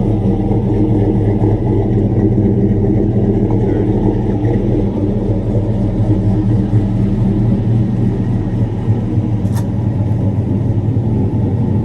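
Box Chevy's engine idling steadily, running on its newly installed 250-amp alternator.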